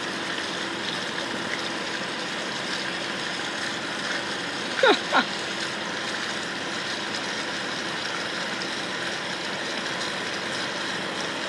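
Steady rush of water in a fish tank, from the tank's flowing water and pump. About five seconds in, two short squeaks fall sharply in pitch.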